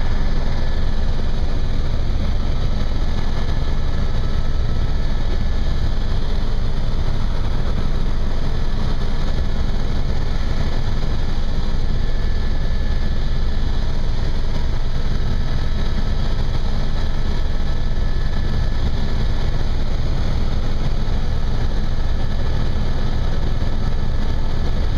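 Helicopter in flight heard from inside the cabin: a steady, loud drone of engine and rotor, with a faint steady high whine over it.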